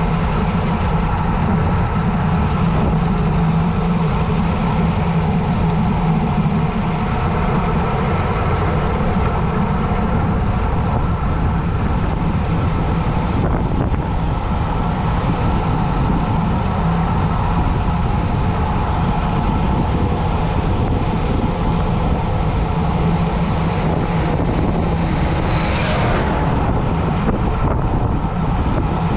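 Steady loud wind rush over the microphone of a road bike descending at speed, with tyre and road noise underneath. A brief swelling whoosh comes near the end.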